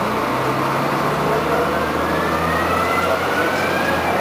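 IVECO 580 bus's engine and ZF gearbox heard from on board while accelerating: right at the start the low engine note drops as a gear goes in, then the bus pulls steadily with a whine that slowly rises in pitch.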